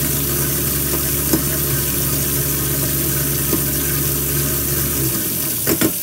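Garbage disposal motor running with a steady hum while tap water pours into the drain, its blades turning freely again now that the jam is cleared. The hum cuts off about five seconds in, the water keeps running, and a couple of knocks follow near the end.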